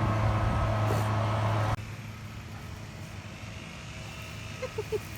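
An engine running steadily with a low, even hum, cutting off abruptly just under two seconds in, leaving quieter outdoor background.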